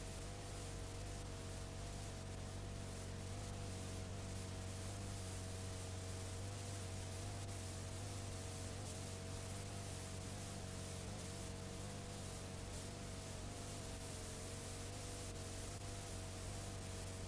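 Steady hiss and mains hum from the playback of a blank stretch of videotape, with two faint, slightly wavering tones in the middle.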